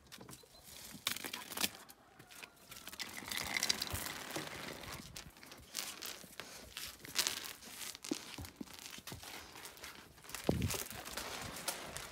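Irregular crunching and rustling with a scatter of sharp clicks: footsteps on dirt and concrete, with a phone being handled while its user walks.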